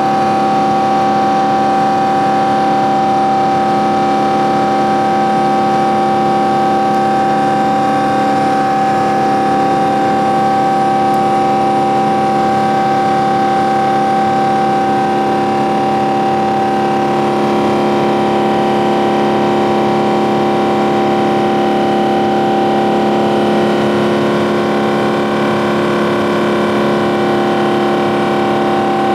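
Boeing 777-200ER turbofan engine at climb power, heard from a cabin seat beside it: a steady drone with one strong humming tone and several fainter steady tones above and below it.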